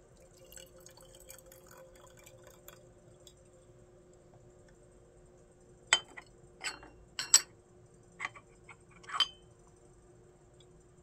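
Teaware being handled during a gongfu tea session. A faint trickle of tea dripping comes first, then about five sharp clinks of cups and lids a few seconds later. A faint steady hum runs underneath.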